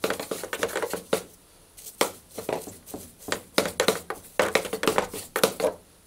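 A small brush scrubbing packed lint out of a tumble dryer's plastic condenser unit: a run of quick, irregular scratchy strokes, pausing briefly a little after a second in.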